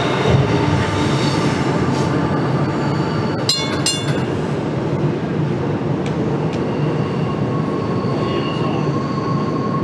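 CSX freight train rolling across a steel bridge overhead: a steady rumble of wheels and cars. There is a brief high-pitched metallic squeal about three and a half seconds in, and a faint steady whine later on.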